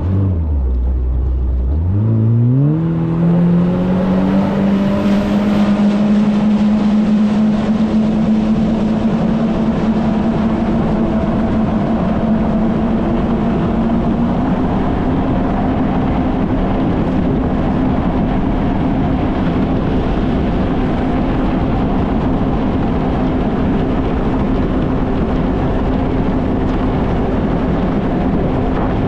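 Kawasaki Ultra 160 LX-S jet ski's naturally aspirated four-cylinder engine revving up sharply from low speed about two seconds in, then holding a steady cruising pitch, with a slight rise in revs partway through, over water and wind rush.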